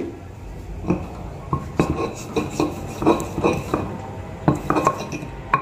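Stone pestle knocking and grinding against a stone mortar (ulekan and cobek) while crushing shrimp paste (terasi): a run of about a dozen irregular sharp clacks.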